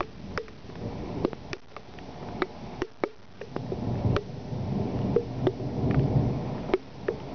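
Thunder from a nearby thunderstorm: a low rolling rumble that dips about three seconds in and swells again in the second half. Scattered sharp ticks of raindrops hitting a surface close by run through it.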